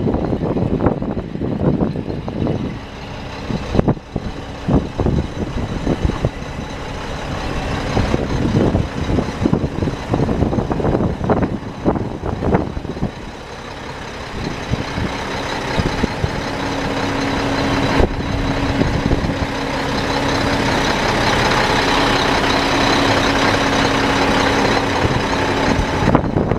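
A steady low drone of a vehicle engine running, under irregular wind buffeting on the microphone that grows toward the end.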